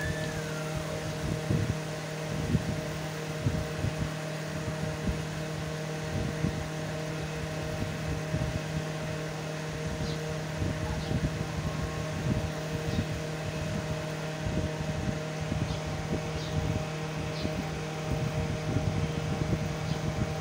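Palak qeema simmering in a pot, with irregular low plops from its bubbles, over a steady hum.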